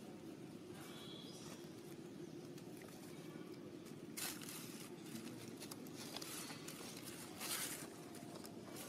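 Faint outdoor background noise with two short rustles, one about four seconds in and a slightly longer one about seven and a half seconds in.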